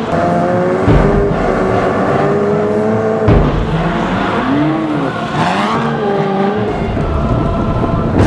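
Ferrari F40 GT's twin-turbo V8 revving up and down under low-speed manoeuvring, with sudden louder throttle openings about one and three seconds in and short rising-and-falling blips of the revs toward the middle.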